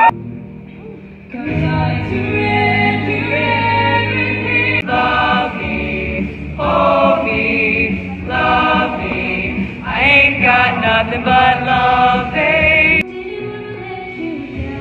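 Show choir singers singing together in a series of short clips that cut off abruptly, one after another. A quieter stretch comes at the start, and the sound drops to something softer about thirteen seconds in.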